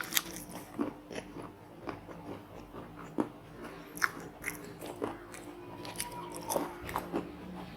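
Close-up chewing and crunching of fried seafood, with sharp, irregular crunches every half second to second.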